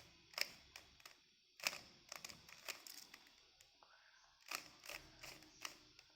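Layers of a plastic Rubik's cube being twisted by hand: short clicks and clacks coming in three quick groups.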